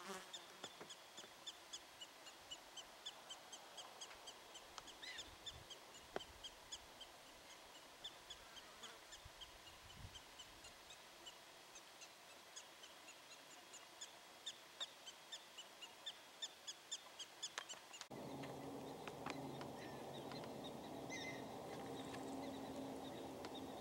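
Black-tailed prairie dogs barking: a faint, long run of short, high chirps repeated about three times a second. About three quarters of the way through the sound changes abruptly to a steady low hum with a few scattered calls.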